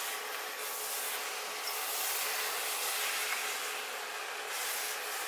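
Cauliflower fried rice sizzling in a hot steel pan while a spatula stirs and scrapes through it; a steady hiss that swells and dips with the stirring.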